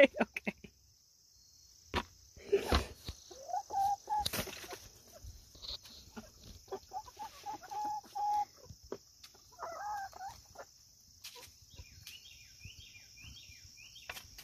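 Young chickens calling in three short bouts of pitched squawks and trills, the middle bout held about a second and a half, with a few sharp knocks early on. A steady high insect drone runs underneath.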